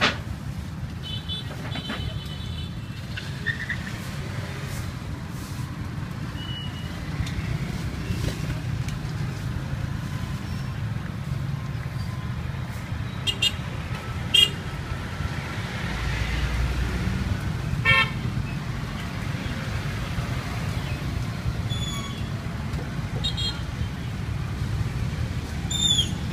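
Street traffic: a steady low rumble of passing motor vehicles, with several short horn toots scattered through it.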